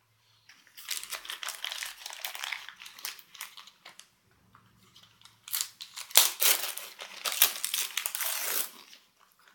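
Wrapping paper being crinkled and torn off a present in two bouts, with a pause in the middle and a sharp rip about six seconds in.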